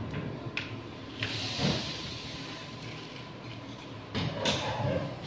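Hand tools being handled on a wooden workbench: a few light knocks and scrapes, then a louder clatter of knocks about four seconds in as pliers are picked up.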